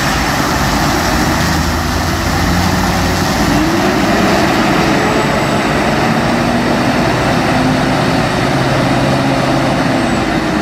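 Heavy-haul truck's diesel engine running steadily under load, with a loud rushing noise over it; the engine pitch drifts slightly.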